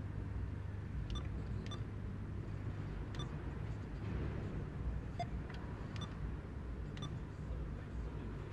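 Subaru Forester's flat-four engine idling with a steady low hum, heard from inside the car, with a few faint short clicks scattered through.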